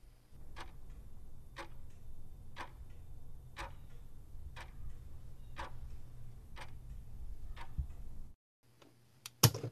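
Clock ticking steadily, about once a second, over a low rumble; the ticking keeps its pace while the wait is sped up, so it is a ticking-clock sound effect. It cuts off a little after eight seconds, and a single sharp click comes near the end.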